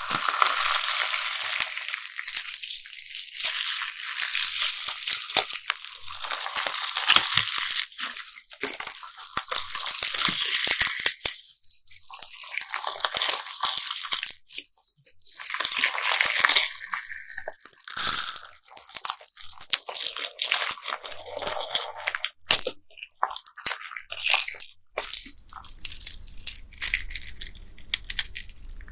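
Bead-filled slime being squeezed and kneaded by hand: a dense crackling and clicking as the beads shift and pop in the slime, in bursts with short pauses between.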